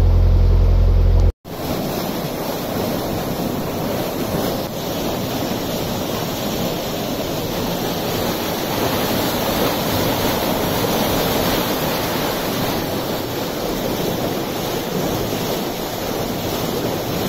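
A narrowboat's engine running for about the first second. After a sudden cut, a steady rush of water swirling in a whirlpool down into a lock's sluice culvert as the lock paddle runs.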